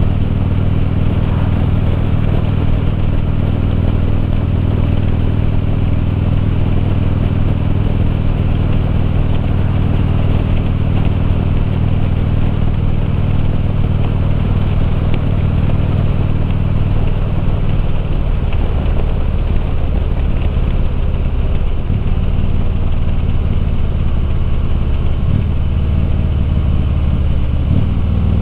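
2013 Harley-Davidson Limited touring motorcycle's V-twin engine running steadily while under way; about two-thirds of the way through its pitch falls as the revs drop, and it carries on at the lower speed.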